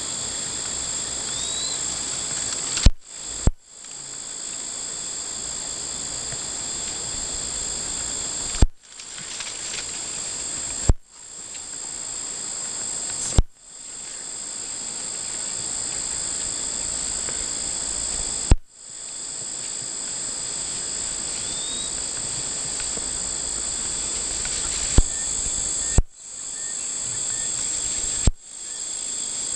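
Steady shrill chorus of insects in the bush, crickets or cicadas, with high buzzing tones that do not change. About nine sharp clicks break it, each followed by a short dropout before the insect sound swells back.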